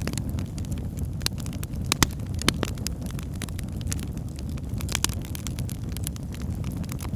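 Fireplace fire crackling: irregular sharp snaps and pops over a steady low rush of the flames, with a few louder pops about two, two and a half and five seconds in.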